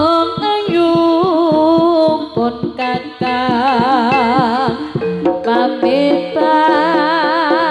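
Javanese jaranan gamelan music: a melody with heavy vibrato over sustained pitched notes and a brisk drum beat.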